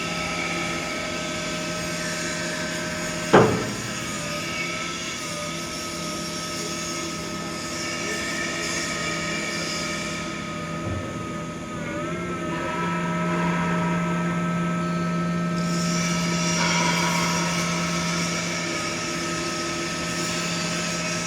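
Electric backhoe loader running, its motor and hydraulics giving a steady, slightly wavering whine that shifts in tone about twelve seconds in and hums stronger for several seconds after. A single sharp clunk about three seconds in is the loudest sound.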